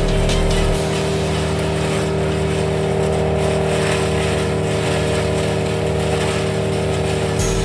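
Vermeer BC1000XL wood chipper's John Deere diesel engine running at a steady speed, a constant machine hum with no load changes. A single sharp click comes near the end.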